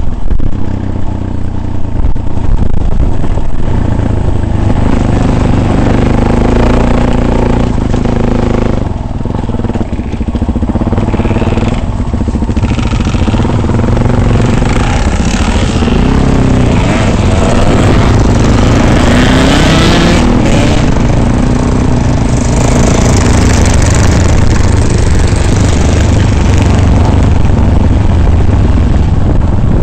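Off-road vehicle engine running under load, its pitch rising and falling as it revs, over a heavy low rumble.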